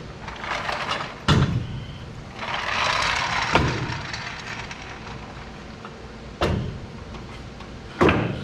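Four loud bangs, the last the loudest, each dying away with a short low ring, with rustling and scraping between the first two as heavy equipment is handled.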